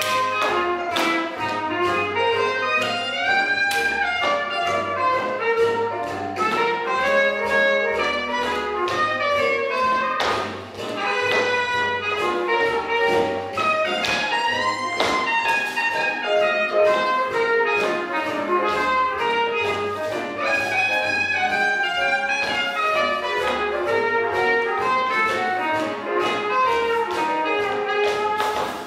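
Swing jazz music with a steady beat, played for dancing.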